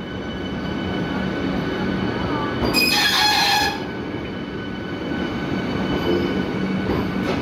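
Vande Bharat Express electric multiple unit running past along the platform: a steady rumble of coaches and wheels on the rails under a thin high steady whine. A loud hiss rises for about a second, three seconds in.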